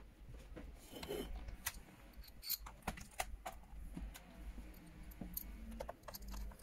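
Scattered light clicks and ticks of a small precision screwdriver turning screws into the plastic back panel of a keyboard, with bits of handling noise.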